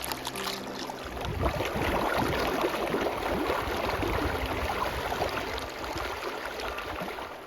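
Shallow sand-bed creek water flowing and splashing, growing louder about a second in.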